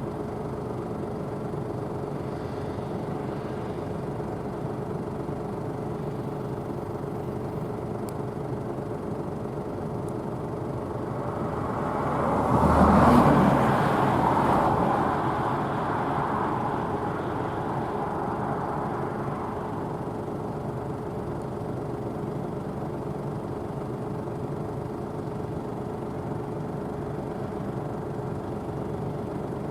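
Claas Tucano 570 combine harvester running steadily while harvesting barley, a constant engine and threshing hum. About twelve seconds in it swells sharply, then fades back over the next several seconds.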